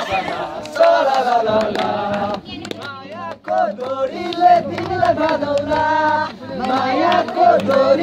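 A group of people singing a song together, their voices rising and falling with short breaks between lines.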